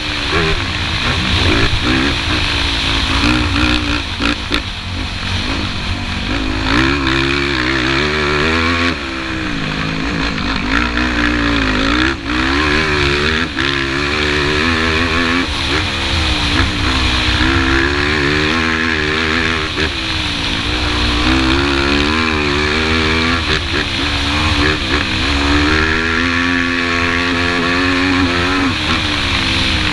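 Yamaha YFZ450 quad's single-cylinder four-stroke engine under hard riding on a dirt track, its pitch climbing and dropping again and again as the throttle is worked, with wind rushing over the microphone.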